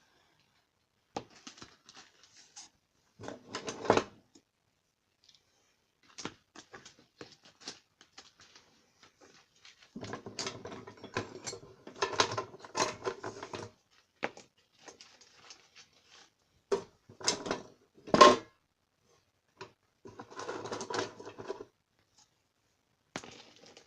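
Hand tools clinking and clattering as they are rummaged through and lifted out of an old toolbox, in scattered bursts with short pauses between, the loudest a sharp knock about three quarters of the way through.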